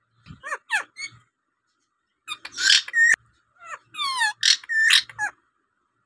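Caged rose-ringed parakeet calling: a few short chirps, then from about two seconds in two runs of loud, harsh screeching calls with fast-sweeping pitch.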